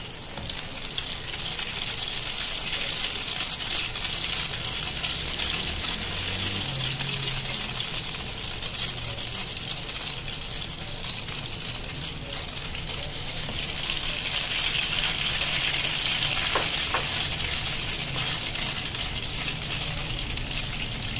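Egg-soaked bread slices sizzling as they fry in hot desi ghee in a nonstick frying pan. The sizzle starts abruptly as the first slice goes in and swells louder about two-thirds of the way through.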